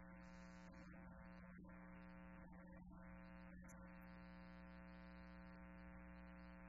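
Faint liturgical music: a slow sung prayer melody in phrases, with one long held note near the end, over a steady electrical hum.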